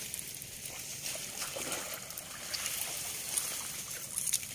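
Shallow muddy water sloshing and splashing in small, irregular splashes as people wade and grope through it by hand.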